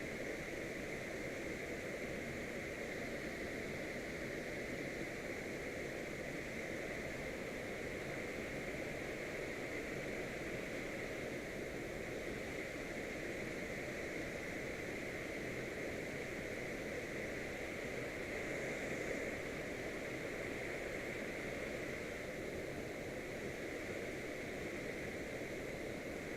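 Steady rushing of a mountain-river waterfall, an even noise of falling water without a break.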